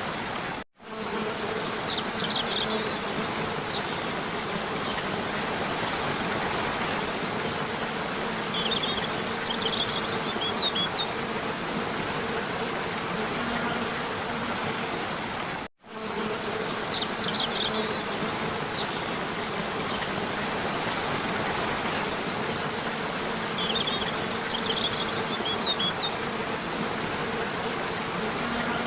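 Steady buzzing ambience, like insects, with a few short high chirps. It runs as a loop: a brief cut-out, then the same stretch of about 15 seconds plays again.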